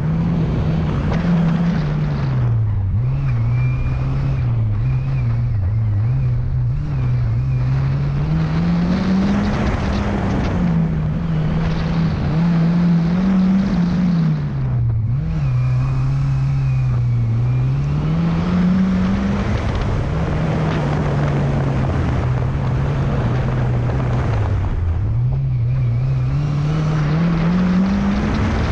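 Lada 2105's four-cylinder engine driven hard. It revs up and down over and over, the pitch climbing under acceleration and dropping suddenly several times as the revs fall.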